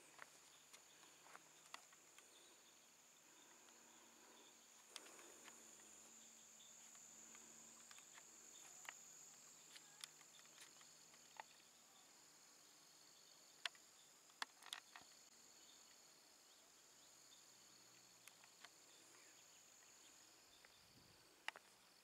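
Faint high-pitched insect chorus in woodland, a steady drone, with scattered small sharp clicks.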